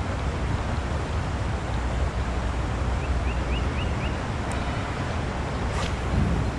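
Steady rushing noise of creek water with wind on the microphone. A short run of five quick rising chirps comes a little past halfway.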